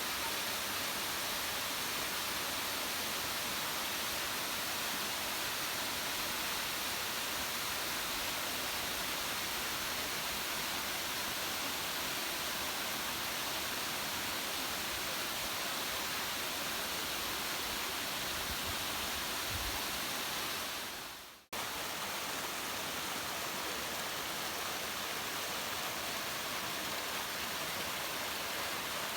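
Steady rushing of falling water from a waterfall. It fades out briefly about two-thirds of the way through and cuts straight back in.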